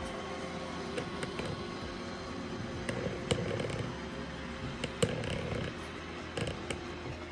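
iRobot Roomba i7+ robot vacuum running on carpet: a steady motor and brush hum with a few sharp clicks and knocks, the loudest about five seconds in.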